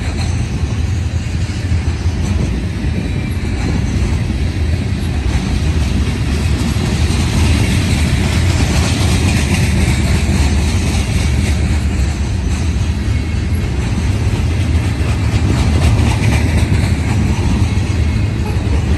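CSX manifest freight train's cars rolling past close by, a loud, steady rumble of wheels on rail.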